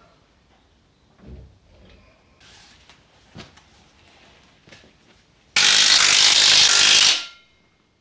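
Light knocks and handling clatter of tools and parts, then a loud burst of hiss lasting about a second and a half that cuts off and fades near the end.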